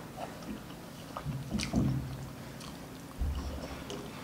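Close-miked chewing and crunching of crispy fried pork belly (lechon kawali) in kare-kare sauce, with scattered short crackles and a low thump about three seconds in.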